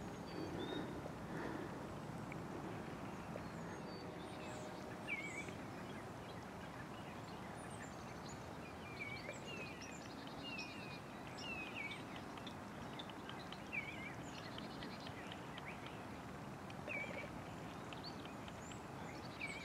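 Small birds chirping, short calls repeated several times a second, over a steady outdoor background rumble. A faint low hum fades out in the first few seconds.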